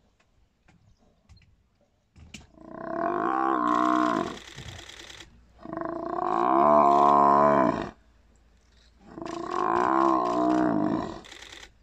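Cape buffalo bull bellowing in distress while lions pull it down: three long moaning calls, each two to three seconds, dropping in pitch as each one ends.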